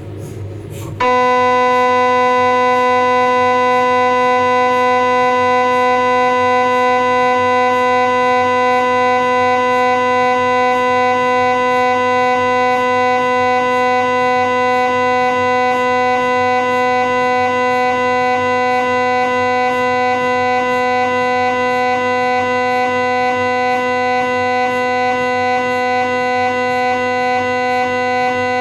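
Philips 1.5 T MRI scanner's gradient coils starting up about a second in and then running a scan sequence (the shim/SmartSpine survey of a cervical spine exam): a loud, steady pitched buzzing drone with a slight regular pulse about twice a second.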